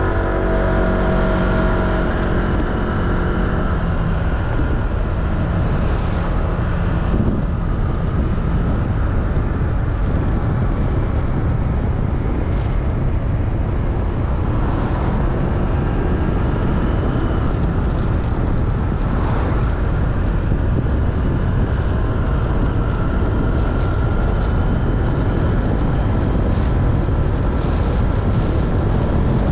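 Motorcycle on the move: engine running under a steady rush of wind noise on the microphone.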